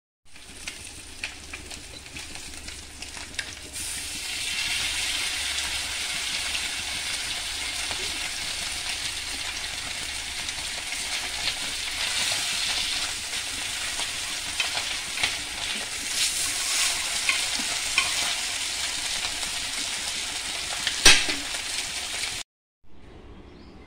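Masala-marinated fish sizzling as it shallow-fries in oil on a black iron tawa. The sizzle grows louder about four seconds in, with scattered clicks of metal tongs against the pan. A sharp clack comes near the end, just before the sizzle cuts off suddenly.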